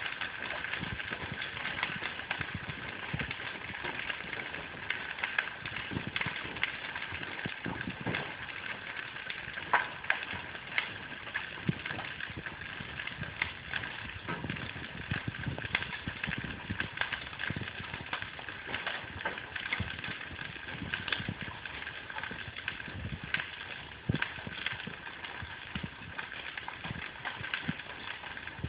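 Hailstones falling and striking hard surfaces: a dense, steady clatter of many small impacts, with a few louder single hits.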